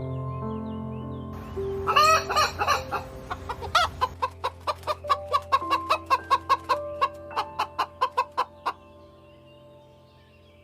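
A chicken clucking: a louder squawk about two seconds in, then a fast run of short clucks that stops near the end, over background music with held notes.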